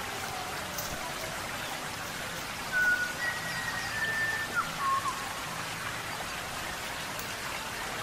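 Steady rain-like hiss, with a few short whistled bird calls about three to five seconds in, some of them sliding down in pitch.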